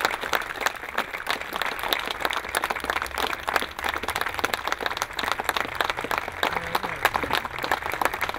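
Outdoor crowd applauding: many people clapping steadily.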